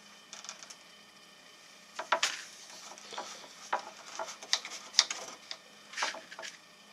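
Irregular knocks, taps and short scrapes of wooden benchwork and hand tools being handled as the section's legs are adjusted to level, starting about two seconds in.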